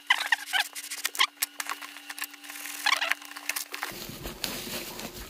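A delivery package being cut and unwrapped by hand: irregular clicks, scrapes and rustling, with a faint steady hum behind. About four seconds in the sound changes abruptly to a dull, continuous low rumble.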